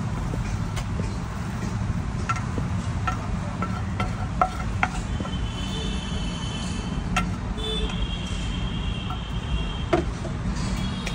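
Street-stall cooking clatter: scattered sharp clicks and taps of metal utensils over a steady low rumble of street traffic. From about five seconds in, high steady tones come and go above it.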